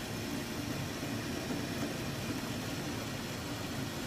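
Hardinge DV59 lathe running steadily under power, its two-speed 220-volt three-phase motor in low range driving the spindle.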